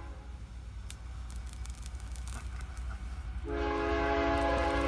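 Distant train horn: a chord of several notes held steady for about two seconds near the end, over a low steady rumble.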